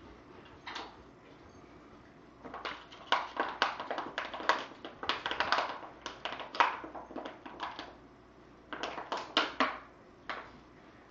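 Quick, irregular runs of sharp clicks and taps. One run starts about two seconds in and lasts several seconds; a shorter one comes near the end.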